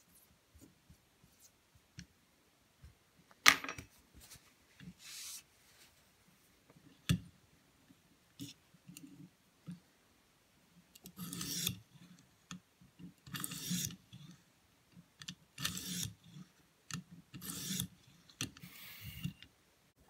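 Oiled 1200-grit stone on a guided-rod knife sharpener scraping along a thin paring-knife edge: scattered clicks and one sharp click at first, then from about halfway a run of short scraping strokes roughly every two seconds.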